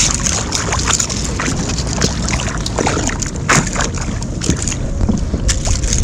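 Sea water sloshing and splashing against a kayak, with irregular small splashes and knocks, over wind rumbling on the microphone.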